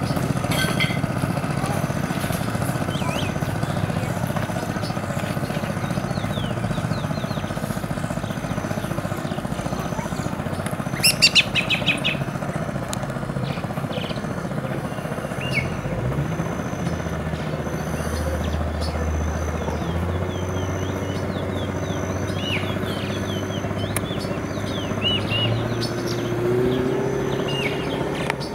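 Birds chirping over a steady low motor hum, with a short loud run of rapid calls about eleven seconds in. From about sixteen seconds the motor's note shifts and rises in pitch.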